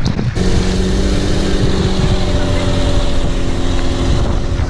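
A tour boat's engine running steadily at one pitch while under way, with wind on the microphone. It starts abruptly about half a second in, after a moment of splashing water.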